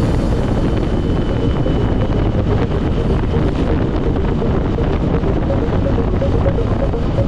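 Onboard sound of a vehicle on the move: a steady, loud rush of wind across the microphone with the engine running underneath, even throughout.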